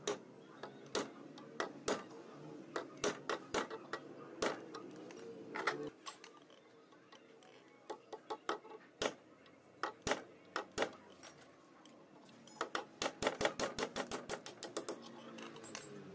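A thin steel rod picking and scraping at the end of a Black and Decker KG15 angle grinder armature held in a vise: irregular sharp metallic clicks and scrapes, coming in quick runs with short pauses between.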